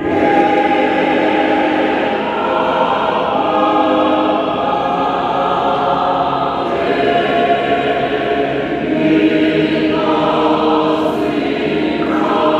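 A choir singing, many voices holding long notes together; it comes in suddenly at the start.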